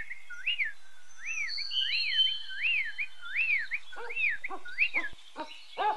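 Birdsong: a bird repeats a whistled chirp that rises and falls, about two a second. From about four seconds in, a second bird joins with shorter, lower calls that fall in pitch.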